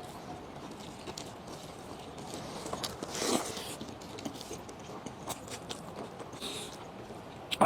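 Soft chewing and mouth sounds of a person eating, with scattered small clicks and a brief louder smack about three seconds in.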